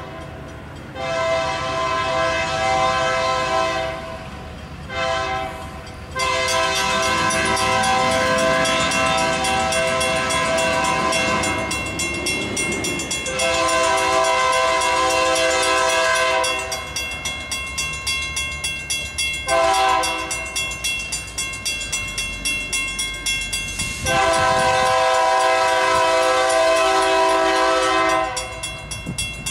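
Air horn of Iowa Interstate GP38-2 locomotive 712 sounding a sequence of long blasts with a couple of short ones, blowing for grade crossings. Between the blasts, during a gap of several seconds, a rapid, even pulsing is heard.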